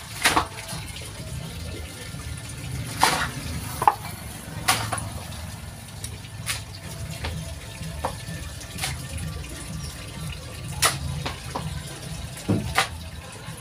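Scattered sharp metallic clicks and knocks, about a dozen at irregular intervals, from a motorcycle shock absorber being worked by hand with a metal rod pushed into its body, over a steady low rumble.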